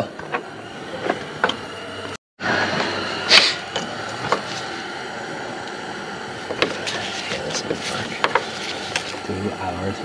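Steel wrenches clicking and clinking against the 7/8 fitting of a skid steer's oil drain hose as it is cracked loose, over a steady background hum. The sound cuts out completely for a moment about two seconds in.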